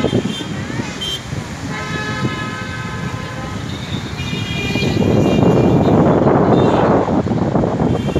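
Road traffic with drawn-out car horn honks over the engine rumble; about five seconds in a louder rushing noise takes over for a few seconds.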